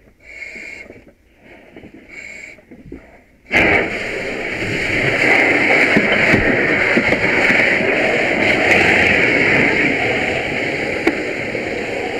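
Firefighter breathing through an SCBA mask regulator, a few short breaths. About three and a half seconds in, a fire hose nozzle is opened with a sudden loud, steady rush of water flow onto the fire.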